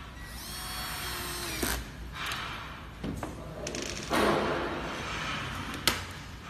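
Electric screwdriver whirring in several short runs as screws are driven into the whiteboard frame, with a sharp click near the end.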